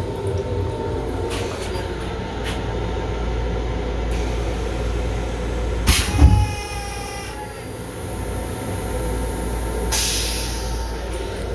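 A Long Island Rail Road M7 electric railcar running, heard from inside its small restroom: a steady low rumble with scattered clicks and rattles, and a loud knock about six seconds in.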